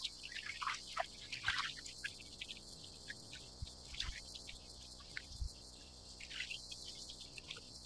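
Small waves lapping and gurgling against the plastic hull of a sit-on-top kayak, in many short, quick plinks and splashes with a few soft low knocks, over a steady high chorus of cicadas.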